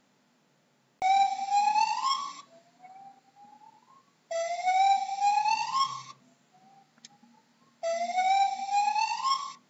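Gibbon calling: three loud, rising whoops about three seconds apart, each lasting about a second and a half, with fainter rising notes in between.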